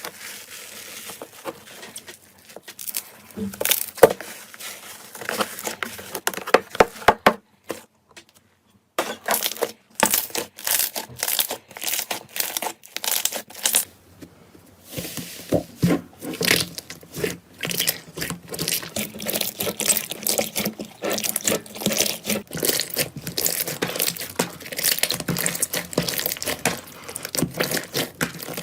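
Slime being squeezed, stretched and poked close to the microphone: dense, irregular sticky clicks and crackles, with a short pause about eight seconds in.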